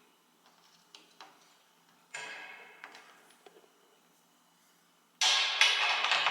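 Metal machine parts and bolts being handled during assembly: a few light clicks, a ringing metallic clink about two seconds in, and a louder ringing metal clank near the end that dies away slowly.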